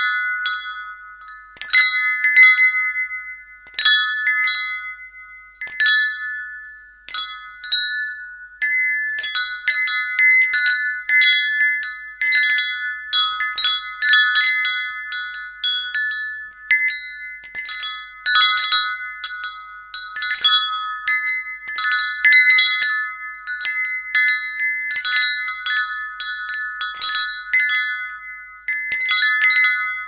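Wind chime ringing: irregular clusters of strikes on a handful of fixed high tones, each note ringing on and fading before the next cluster.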